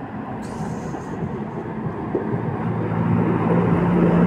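A motor vehicle approaching with its engine running, growing steadily louder as it nears; its engine tone becomes clear in the second half.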